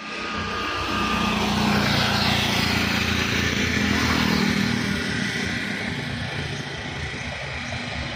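A motor vehicle's engine passing close by on a road, building to its loudest a couple of seconds in, then fading away.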